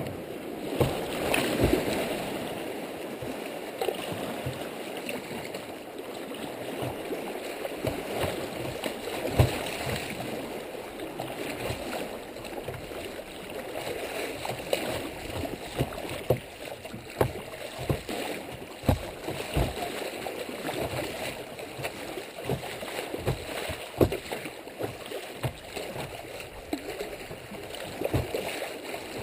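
Creek water rushing through a shallow riffle past a kayak's bow, with frequent sharp splashes and slaps of water against the hull.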